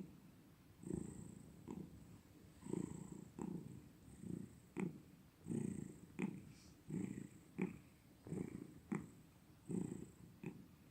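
Domestic cat purring close up, the rumble swelling and fading in pairs with each in-and-out breath, about one breath every second and a half.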